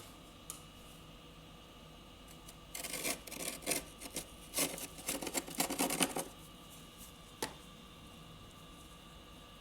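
Fluffy freezer frost crunching in a run of short rasping bursts that starts about three seconds in and lasts about three and a half seconds, with a single faint click before and after.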